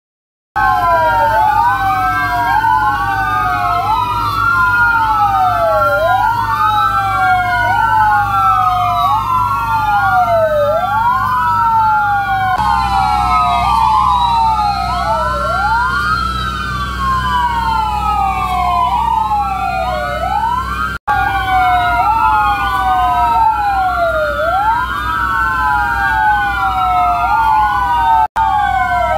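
Sirens of several fire trucks wailing together, each rising and falling out of step with the others, over a low engine rumble. The sound cuts out for an instant twice in the last third.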